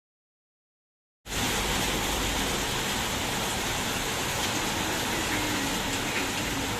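Heavy rain falling steadily, a dense even hiss that starts abruptly about a second in.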